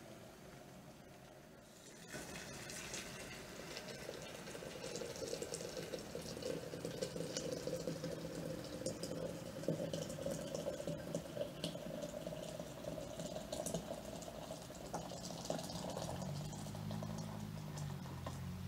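Just-boiled water poured from an electric kettle into a ceramic teapot, starting about two seconds in: a steady splashing stream whose tone rises slightly as the pot fills.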